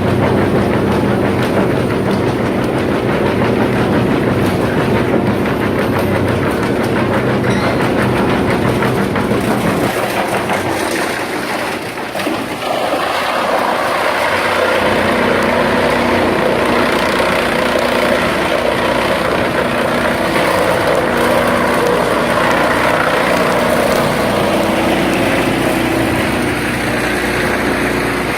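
Large industrial wood chipper on a wood chips production line running: a steady mechanical hum under dense rattling noise. About ten seconds in the low hum falls away, and from about thirteen seconds a louder, noisier rush takes over.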